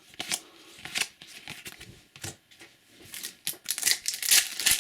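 Trading cards being flipped through and handled: scattered light clicks and rustles, then a denser crinkling of card and packet wrapper from about three seconds in.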